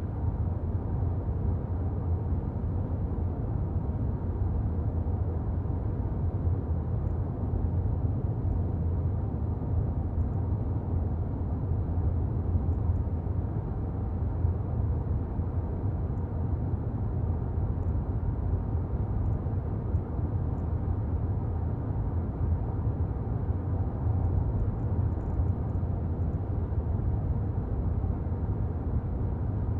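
A car driving on town roads: a steady low rumble of engine and tyre noise.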